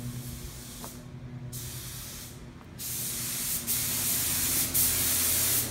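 Compressed-air paint spray gun spraying a motorcycle frame in short passes. The hiss cuts out briefly twice in the first three seconds, then runs louder and steadier from about three seconds in. A steady low hum runs underneath.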